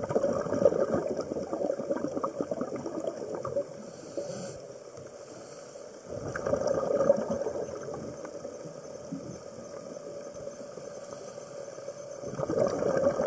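Scuba diver breathing through a regulator underwater: three bursts of exhaled bubbles about six seconds apart, with a faint hiss of inhalation between them.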